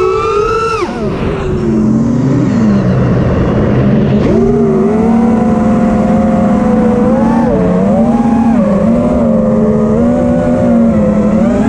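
Armattan Rooster 5-inch FPV racing quadcopter's brushless motors and props whining, heard through the onboard GoPro. The pitch follows the throttle: it climbs sharply in the first second, then drops. It holds fairly steady with small rises and dips, and climbs again near the end.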